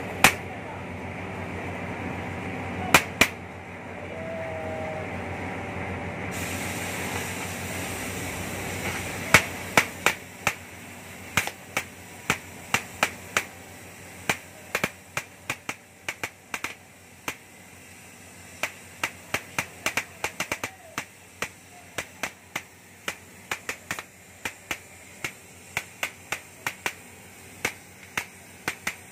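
Oxy-fuel gas cutting torch cutting steel: a steady hiss of flame and cutting oxygen, then from about eight seconds in a quieter hiss with irregular sharp crackles and pops, several a second, as sparks and molten slag spatter from the cut.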